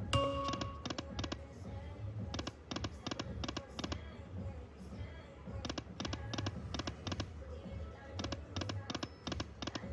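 Lightning Cash Magic Pearl slot machine game sounds. A short chime opens, then clusters of rapid clicks repeat over a low electronic beat.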